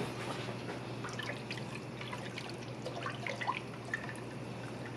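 Wooden spoon stirring liquid broth in a stainless steel stockpot: quiet swirling and sloshing with a few light taps.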